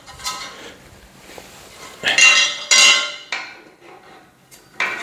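Steel parts of a metal platform bed frame clanking and ringing as they are set into place: two loud metallic clanks about two and three seconds in, with lighter knocks near the start and near the end.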